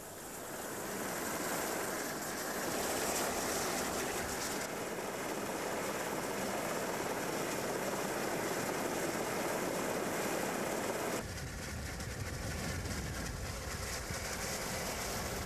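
Fire tug's water cannons spraying in a steady rushing hiss. About eleven seconds in, the hiss gives way to a deeper, steady rumble of engines and wind.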